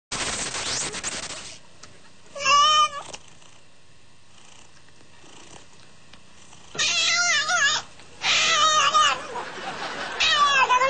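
Domestic cat yowling: drawn-out calls that waver in pitch, one about two and a half seconds in, then three more from about seven seconds on, the last one longer. A burst of noise opens the first second and a half.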